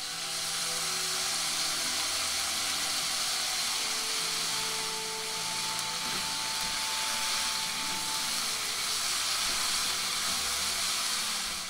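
Shredded cabbage and carrot sizzling hard in a hot wok as the sauce hits the pan and the vegetables are stir-fried, a loud steady hiss that starts suddenly as the sauce goes in.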